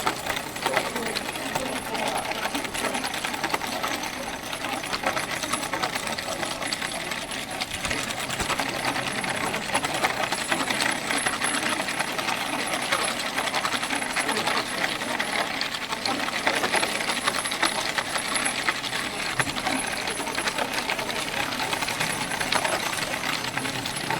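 Steel ball-bearing wheels of a wooden cart loaded with firewood rolling fast over pavement: a continuous dense metallic rattle and clatter.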